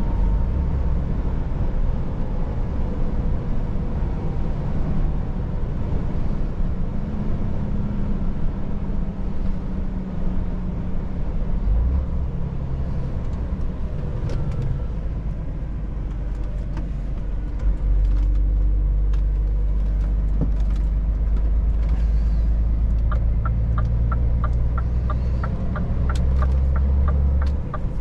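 Scania S500 truck's diesel engine running while driving, a steady low rumble that grows louder about two-thirds of the way through. Near the end a regular ticking, about three a second, joins in.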